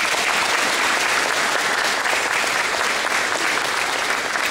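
Audience applauding in a large hall: a dense, steady patter of many people clapping.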